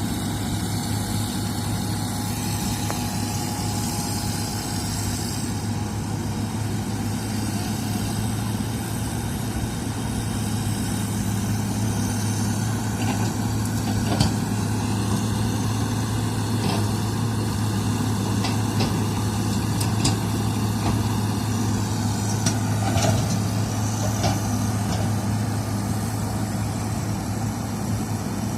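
Heavy diesel engine of earth-moving machinery running steadily, with a few sharp metallic knocks over it.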